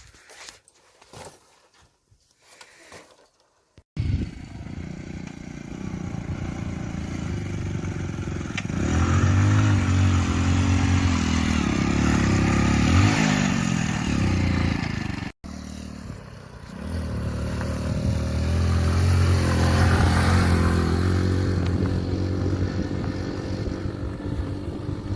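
Hero Splendor Plus motorcycle's small single-cylinder four-stroke engine running under load, its revs rising and falling as it is ridden. The engine comes in suddenly about four seconds in, breaks off abruptly in the middle, then picks up again.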